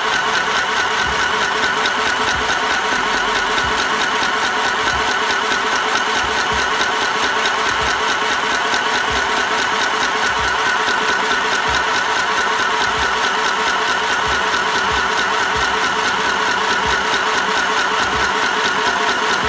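Mini sewing machine's small electric motor running steadily with a loud, even whirr, winding yellow thread onto the bobbin.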